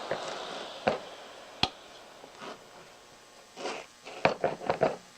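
Clicks and knocks of hand-handling an oscillating multi-tool and its accessories, with a cluster of quick clicks near the end, as the sanding attachment is taken off and swapped. The running noise of the tool fades out in the first second.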